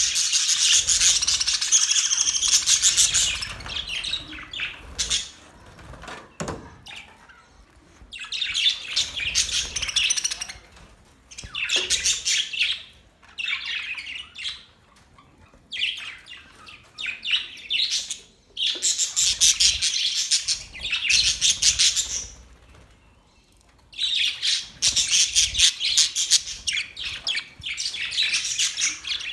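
Budgerigars chattering and warbling in rapid high chirps, in bursts of a few seconds with short pauses between them.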